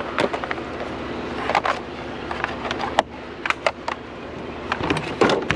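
Irregular clicks and knocks from curbside scrap being handled, over a steady background of a running vehicle engine.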